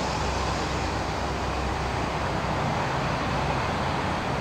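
A 1990 Honda Pacific Coast PC800 motorcycle's V-twin engine running as the bike rides slowly along the road: a steady, even low hum.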